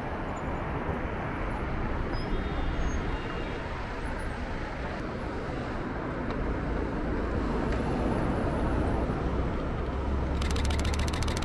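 Busy city traffic passing through a large intersection: steady road noise from cars, swelling slightly louder in the second half. Near the end comes a rapid, even run of clicks, which fits a camera shutter firing in burst mode.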